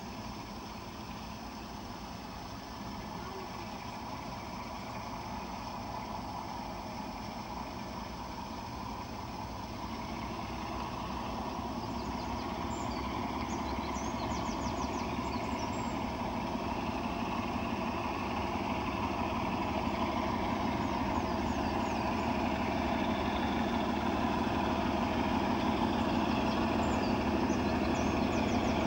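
Class 47 and Class 33 diesel locomotives' Sulzer engines working hard as they pull away with a heavy train, a steady drone growing louder as they approach. Faint bird chirps come and go in the middle and near the end.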